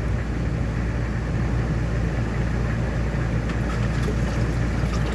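A steady low mechanical hum, like a motor running, with a few faint light clicks about three and a half to five seconds in.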